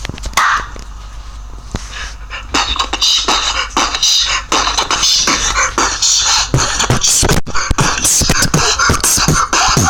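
Disco Robo toy dancing robot playing a beatbox-style beat through its small built-in speaker, kicking in about two and a half seconds in as a fast run of sharp clicks.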